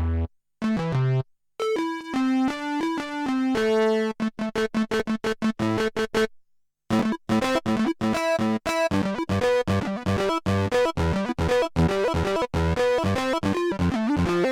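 Kurzweil K2000 synthesizer playing a factory program dry, with no effects: bright pitched keyboard notes in short phrases with brief breaks, a run of fast repeated staccato notes in the middle, then a busy stream of short notes.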